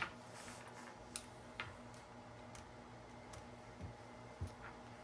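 Faint, scattered handling clicks, four or five small ticks a second or so apart, over a low steady hum.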